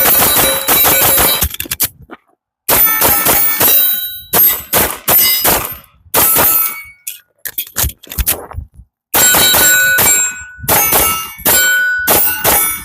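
Repeated bursts of rapid metallic clanging, each a second or two long, with ringing tones that hang on through each burst, like a fast string of rounds striking steel targets. There are about seven bursts with short gaps between them.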